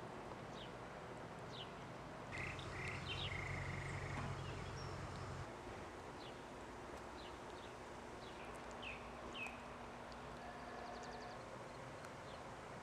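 Outdoor spring ambience with small birds giving short, downward-sweeping chirps again and again over a steady low background hiss. A low hum swells in for about three seconds not long after the start.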